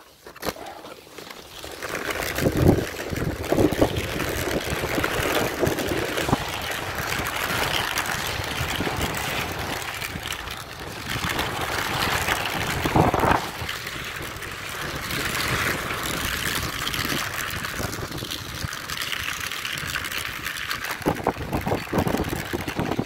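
Mountainboard's pneumatic wheels rolling over a sandy, gravelly dirt trail: a continuous rough crunching rumble with a few louder knocks from bumps.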